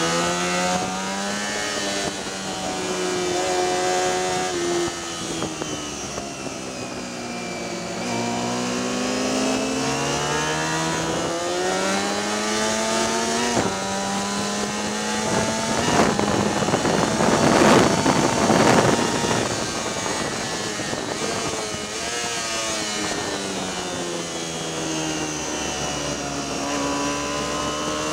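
Sport motorcycle engine heard from on board at racing speed, its pitch climbing under acceleration, stepping down at gear changes and falling away under braking into corners. A louder rushing noise rises over it for a few seconds midway.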